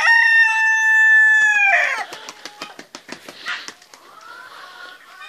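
Rooster crowing: one long held call that falls away at the end about two seconds in, followed by a run of quick light knocks and rustles.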